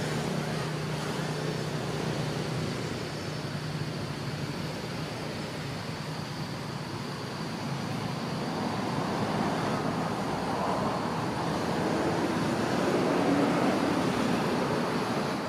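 Steady outdoor ambient noise: an even rushing hiss with a faint steady high tone above it, swelling a little near the end.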